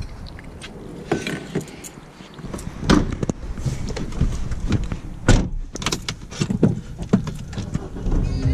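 A string of clunks, clicks and knocks from a MINI hatchback's tailgate and door being shut and someone climbing into the driver's seat, with a jangle of keys. A low rumble comes in near the end.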